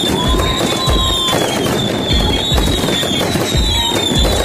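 Aerial fireworks going off in a steady string of bangs, several every second or two, with high falling whistles over them.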